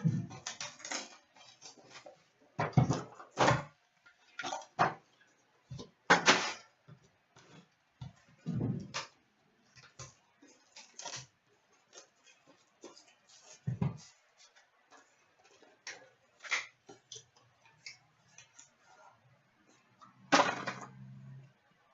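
A trading-card box being opened and its cards handled: irregular rustles, scrapes and light taps of cardboard and card stock, with short pauses between.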